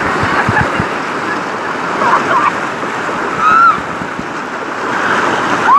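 Rushing water, with a few short, high shouts or whoops over it about two, three and a half, and nearly six seconds in. There are a few low thumps in the first second.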